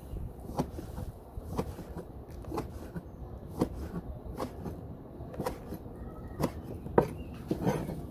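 A kitchen knife slicing goat skin on a plastic cutting board, the blade knocking the board with a sharp click about once a second.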